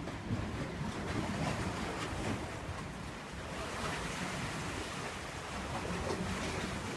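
Sea waves washing steadily against the shore, with wind rumbling on the microphone.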